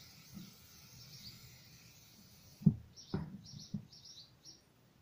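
Small birds chirping in the background. About two and a half seconds in, a sharp knock is followed by two lighter knocks as the air-filter housing on a Stanley Fatmax air compressor's pump head is handled.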